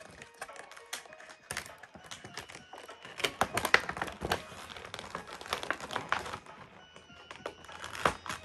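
Hands opening a cardboard trading-card collection box and handling its packaging: a rapid, uneven run of clicks, taps and crinkles, busiest through the middle.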